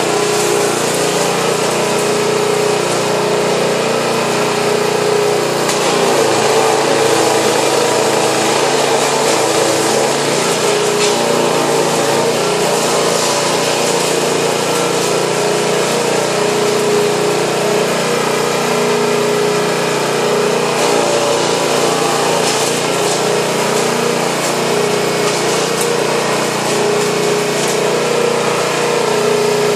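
Bearcat SC3305 chipper-shredder's small OHV petrol engine running steadily and loud while branches are fed in and chipped.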